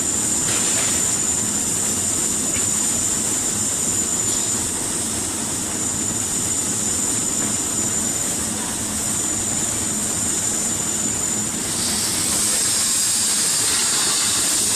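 Steady machinery noise of a pipeline welding station, with a thin high steady whine over it. About twelve seconds in, the whine stops and a louder hiss takes over.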